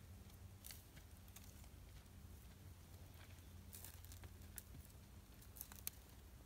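Near silence with faint, scattered crackles and rustles from a cow grazing and stepping through dry desert grass and brush, over a low steady hum.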